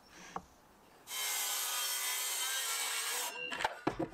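HiKOKI C3606DA cordless circular saw cutting through 18mm hardwood plywood in one steady pass of about two seconds, starting about a second in. A few short knocks follow as the cut ends.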